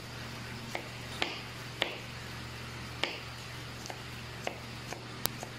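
Irregular light knocks and clicks of hand work with food on a kitchen counter, about eight of them spaced half a second to a second apart, over a steady low hum.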